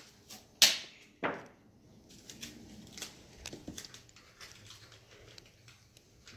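Blue painter's tape ripped quickly twice, about half a second and just over a second in, followed by light crackling and small ticks as the tape is handled and pressed down.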